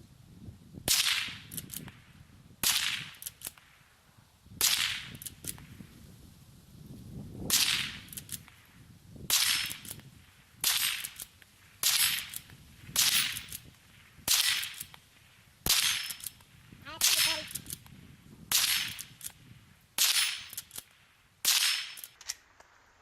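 Henry lever-action .22 LR rifle firing a string of about a dozen sharp cracks, one every second or two, with faint clicks after each shot as the lever is worked.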